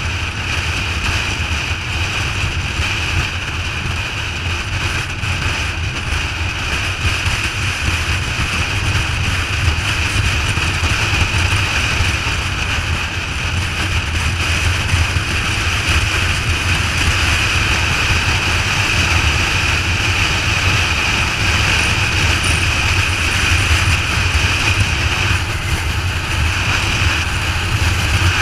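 Motorcycle cruising at steady freeway speed: the engine runs evenly under a constant rush of wind and road noise, with no change in pace.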